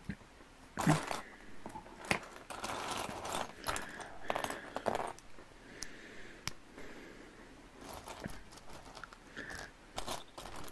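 Plastic LEGO bricks clicking together and rattling as pieces are handled and picked from a loose pile, in short irregular bursts with sharp clicks, the loudest about a second in.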